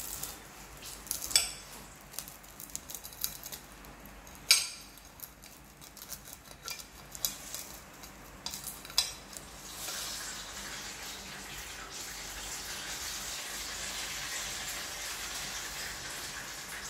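Knife and fork clinking and scraping on a ceramic plate while cutting fried banana spring rolls, with three sharp clinks standing out among lighter taps. About ten seconds in the clinking stops and a steady hiss comes up.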